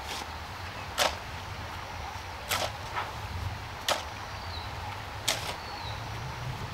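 Shovel and hoe blades chopping and scraping into loose garden soil: four sharp strikes, each about a second and a half after the last, over a steady low rumble.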